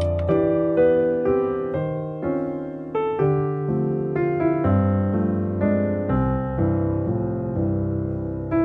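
Background piano music: a melody of single notes over low held chords, without typing.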